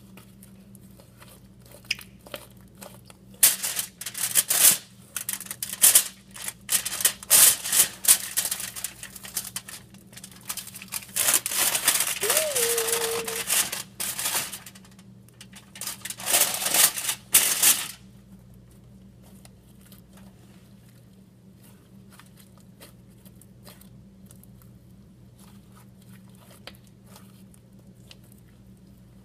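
Crinkling and tearing of a Model Magic clay pouch, in loud irregular bursts that start a few seconds in and stop a little past halfway, leaving only faint handling noise.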